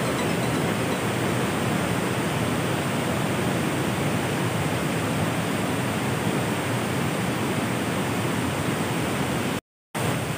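Waterfall rapids of a fast-flowing river rushing over rocks: a dense, steady rush of water. It cuts to silence for a fraction of a second near the end, then resumes.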